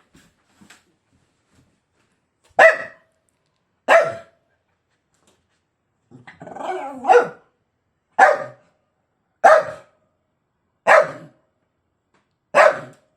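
A pug barking in single sharp barks, about one every second and a half, seven in all, with a short throaty grumble leading into the third.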